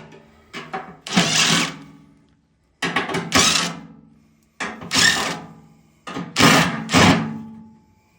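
A cordless 1/4-inch impact driver backing out the 1/4-inch sheet-metal screws on a furnace blower housing. It runs in several short bursts, one or two per screw, with brief pauses between them.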